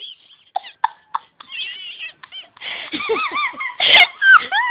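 Small Maltese dog whining: a few short high squeaks, then a run of high-pitched wavering whines that rise and fall, with a louder, harsher burst about four seconds in.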